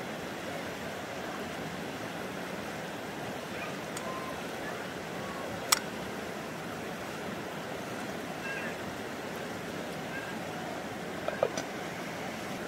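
Steady rushing of a creek, with one sharp knock about six seconds in and a short cluster of metal clinks near the end as a lid is set on a frying pan.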